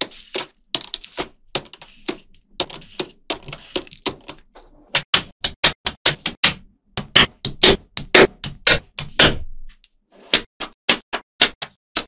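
Small magnetic balls clicking sharply as they snap together one after another while being pressed into rows. The clicks come irregularly at first, then in quick runs of about three or four a second, with a brief pause a little before the end.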